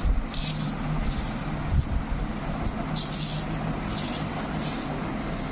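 Steady background traffic noise: a rumble with a low engine hum and a few short hisses.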